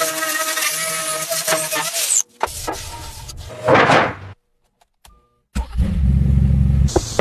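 Pagani Zonda's Mercedes-AMG V12 engine running in several short cut-together segments. A steady engine note comes first, then a swell of noise, a second of silence, and a deep low rumble near the end.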